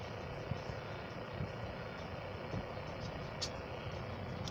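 Faint, steady vehicle engine and traffic noise with a low rumble, plus a brief faint tick about three and a half seconds in.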